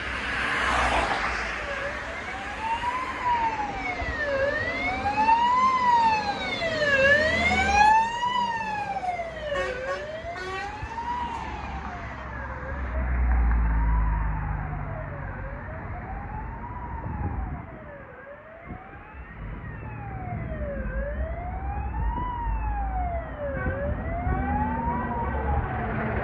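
Polish fire service water tanker's siren in wail mode, rising and falling about once every two and a half seconds, as the truck drives past on an emergency run and pulls away up the road. Traffic and engine rumble run underneath.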